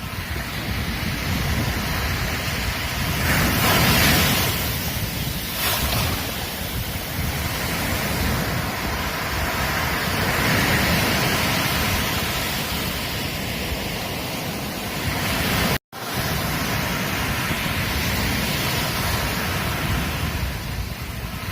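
Ocean waves washing onto a beach: continuous surf noise that swells and falls as waves break, the biggest surge a few seconds in. There is a split-second dropout to silence about two-thirds of the way through.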